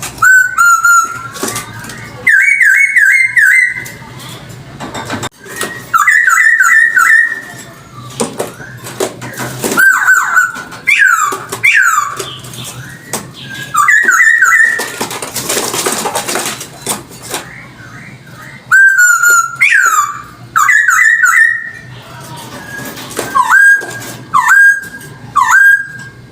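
Hong Kong poksay (a laughingthrush) singing loudly in clear whistled phrases, some quick runs of three or four ringing notes and some single notes sliding down in pitch, with short pauses between phrases. About halfway through, a couple of seconds of hiss-like noise rises behind the song.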